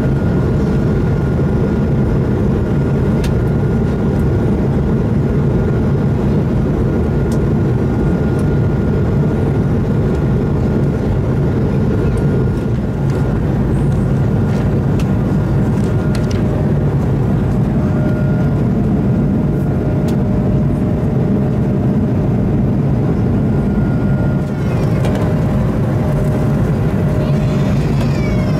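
Steady cabin noise of an Airbus A220-300 in flight, a loud, even rumble of its engines and airflow with a faint steady whine above it. A few light clicks from magazine pages being turned.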